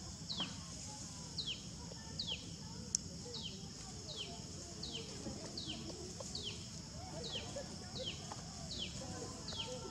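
A bird calling: a short falling whistle repeated evenly about every three-quarters of a second, over a steady high hum. A single sharp click comes about three seconds in.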